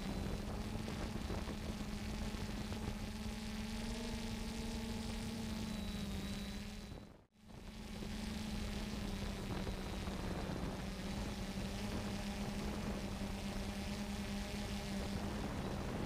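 3DR Solo quadcopter's electric motors and propellers humming steadily in flight, a constant drone with a steady low pitch. The sound fades out and back in briefly about seven seconds in.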